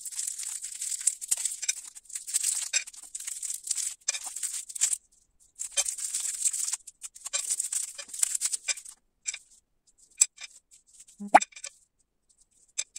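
Plastic wrappers of Halls Color hard candies crinkling in rapid, dense bursts as the candies are unwrapped, sped up. The crinkling stops a little past two-thirds of the way in, leaving a few sparse clicks and one sharp click with a short ring near the end.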